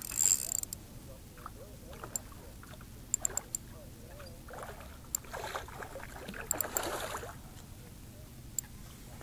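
A hooked fish splashing at the water surface while it is played, in two bursts of splashing about five and six and a half seconds in. A few sharp clicks right at the start.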